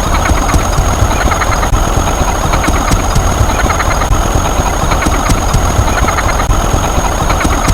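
Steady, loud engine-like rumble, idling without change, with a thin high whine over it.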